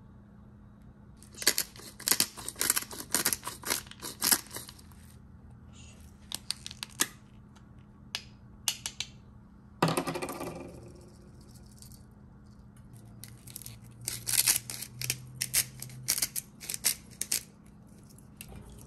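Food being prepared by hand at the table: clusters of quick, sharp clicks and snips, with a short falling tone about ten seconds in and a low steady hum underneath.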